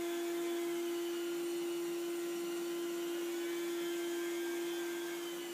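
Rotary hot-water carpet-extraction tool running as it is pushed over carpet, its spinning head and vacuum suction through the hose giving a steady, even hum with one strong constant tone.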